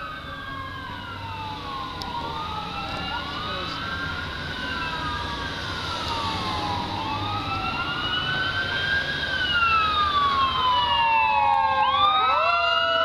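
Fire truck sirens wailing: two or more sirens overlapping, each slowly rising and falling in pitch, growing louder as the apparatus approaches.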